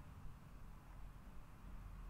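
Almost silent: a faint, steady low rumble and hiss of room tone, with nothing standing out.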